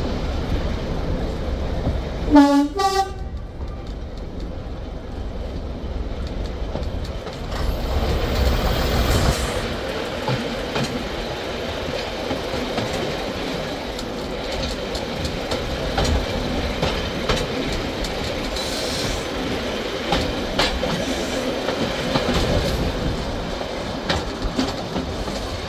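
Class 108 diesel multiple unit running along the line, heard from its carriage window: a short two-tone horn about two seconds in, then steady running noise with the wheels clicking over rail joints.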